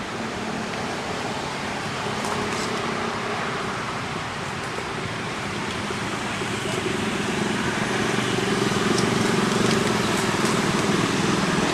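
A motor vehicle's engine running steadily over a noisy background, growing louder in the second half.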